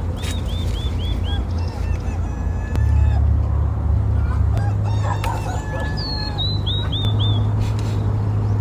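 Geese honking in the middle, with a small bird's quick high chirps at the start and again near the end, over a steady low rumble.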